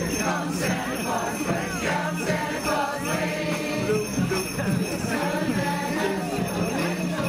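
A stick of sleigh bells shaken along with a high school choir singing a Christmas carol.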